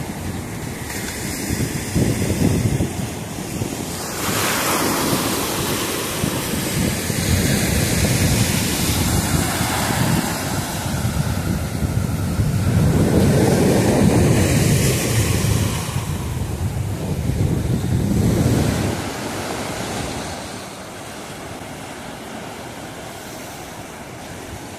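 Rough sea surf breaking and washing in foam, with wind buffeting the microphone. The wash surges and eases several times, then settles to a quieter steady hiss near the end.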